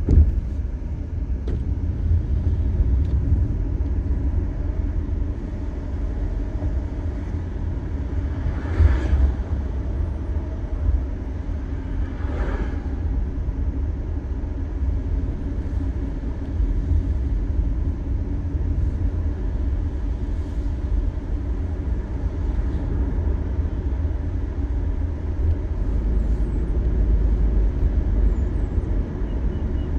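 Car driving at highway speed, heard from inside the cabin: a steady low rumble of road and tyre noise. There is a brief knock right at the start, and two short louder swells about nine and twelve seconds in.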